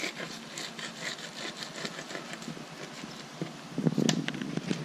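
Fillet knife slicing along a whiting's backbone on a plastic cutting board: a run of small irregular clicks and scrapes as the blade works down the bones. A louder rumbling noise with a sharp click comes about four seconds in.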